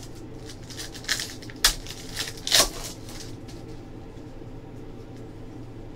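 Trading cards being handled and flipped through by hand, with a few sharp, crisp swishes in the first three seconds over a low steady room hum.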